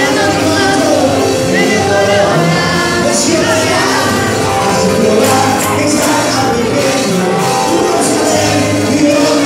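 Live Christian worship music: singing over a band, with tambourines jingling in rhythm.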